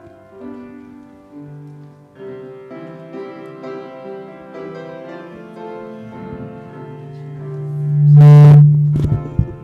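Instrumental hymn music on piano over a low sustained bass note. The low note swells to a loud peak near the end, and a brief knock follows just after.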